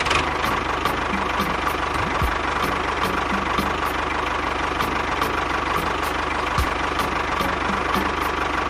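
A small motor running steadily, with a fast, regular ticking beat over it.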